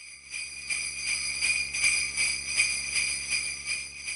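Jingle bells shaken in a steady rhythm, about two or three shakes a second, starting suddenly and stopping abruptly.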